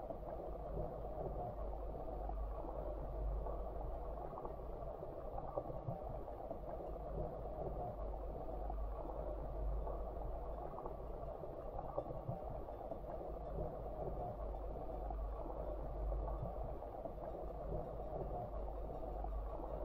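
Steady, muffled rush of stream water heard underwater through a camera's waterproof housing, with a low rumble and a few faint clicks.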